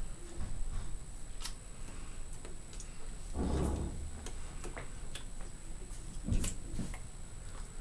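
Small sounds of a person signing in a small room: scattered light clicks and taps from hands and mouth, a breathy puff about three and a half seconds in, and a soft thump with a click near the end.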